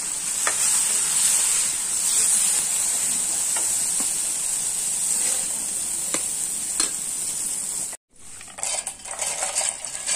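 Tomato pieces sizzling steadily in hot oil, with a steel ladle scraping and knocking against the pan a few times. About eight seconds in the sound cuts out briefly, then raw peanuts clatter in a steel bowl.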